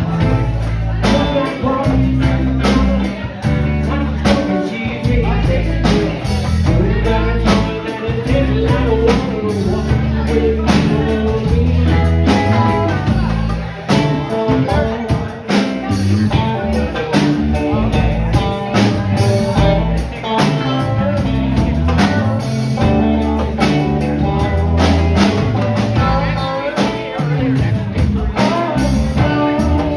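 Live rock band playing: electric guitars over bass and a drum kit, with a steady beat.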